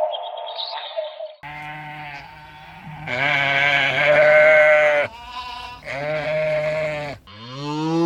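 Farm animals calling: a short falling call, then a series of long, drawn-out bleats, the loudest about three to five seconds in. Near the end a cow starts a moo that rises in pitch.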